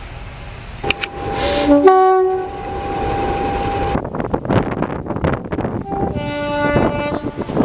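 Locomotive whistle sounding short chord-like blasts, with a loud hiss about a second in, then one long steady note. A train's rapid rhythmic beating follows, and another chord blast comes near the end.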